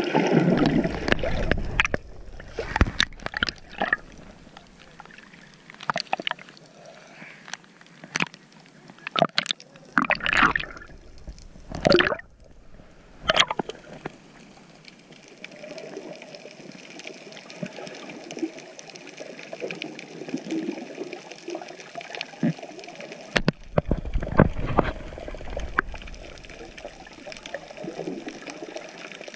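Water gurgling and sloshing around a camera held underwater while snorkeling, with louder rushes of bubbles and splashing from fin kicks near the start, in the middle and again later. Sharp clicks are scattered throughout.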